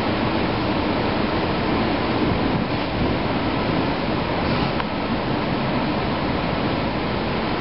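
Steady hum and rushing noise of running machinery, with no change in pace.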